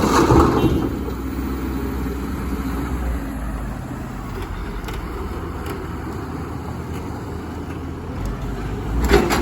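Komatsu hybrid excavator running steadily with a low rumble, with louder, rougher noise for the first second and again briefly near the end.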